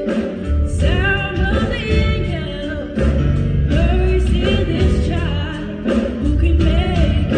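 Live gospel choir and soloist singing over a band with strong bass, with lines that bend and slide in pitch.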